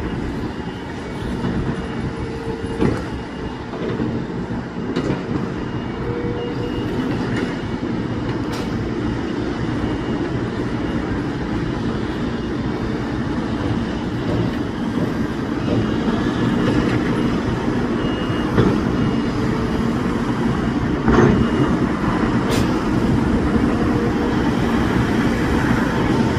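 Heavy tracked excavators at work, diesel engines running steadily under load with scattered metallic clanks and knocks. The machinery gets somewhat louder in the second half.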